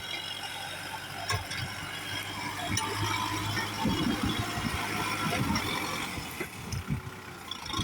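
Kubota tractor engine running, with metallic rattling and clanking.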